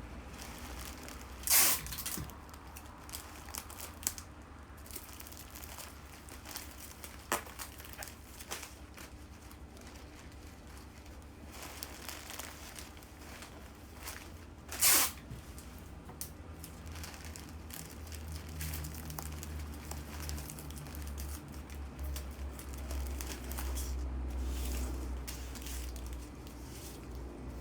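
Paper or plastic wrapping being handled: crinkling and small clicks, with two short, loud tearing sounds, one about a second and a half in and one about fifteen seconds in.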